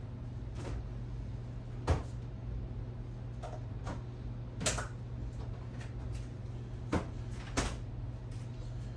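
A few short, sharp knocks and clicks of kitchen handling, about four over several seconds with the loudest near the start, over a steady low hum.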